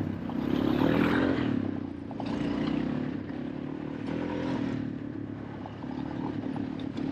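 Small vehicle engine running under way, its revs swelling and easing several times.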